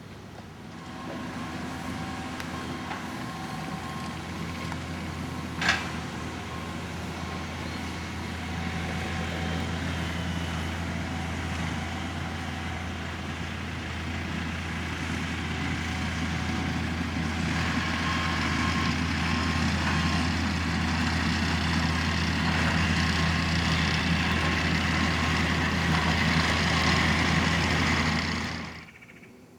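Engine of a truck or similar heavy machine running steadily with a low hum, growing louder over about twenty seconds, with one sharp click about six seconds in; the sound cuts off suddenly just before the end.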